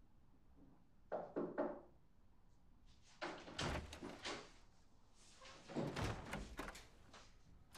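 An apartment door and its latch being handled. There is a quick run of clicks about a second in, then two longer bursts of knocking and rattling around three and six seconds in.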